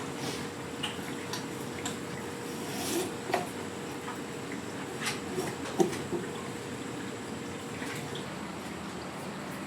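Kitchen work on eel kabayaki: a steady wet hiss with scattered light clicks and drips. A sharper knock comes about six seconds in, over a faint steady hum.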